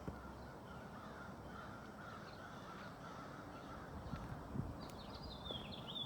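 Birds calling outdoors: a run of repeated calls, then a short, higher chirping near the end.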